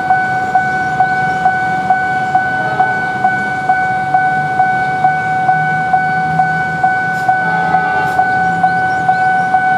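Railway level-crossing warning alarm ringing steadily, a high electronic tone pulsing about twice a second. Beneath it is the low hum of an approaching diesel locomotive.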